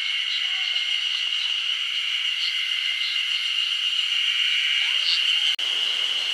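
A steady, shrill, high-pitched chorus of wildlife, with scattered short chirps over it. It drops out briefly near the end.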